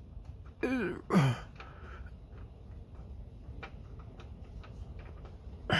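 A short wordless vocal sound from a man, like a hum or grunt, then faint scattered clicks and taps of hands and tools working under a car.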